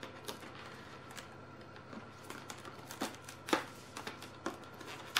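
Hands opening a small cardboard advent-calendar compartment and its packaging: faint, scattered rustles and crisp clicks, a few sharper ones about three seconds in.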